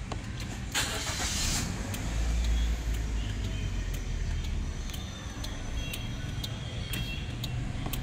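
Perodua Alza's engine started with a push-start button, heard from inside the cabin: a short burst of starter cranking about a second in, then the engine catches, runs up briefly and settles into a steady idle.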